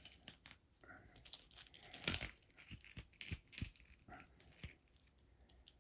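Hands posing a McFarlane Toys DC Multiverse Flash action figure: the plastic joints give a scattering of small clicks, with faint rubbing and rustling of fingers on the figure. The loudest click comes about two seconds in.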